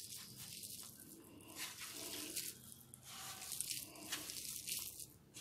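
A hand squeezing and mixing moist grated bottle gourd with gram flour and spices on a plate: soft, wet rustling strokes that come unevenly throughout.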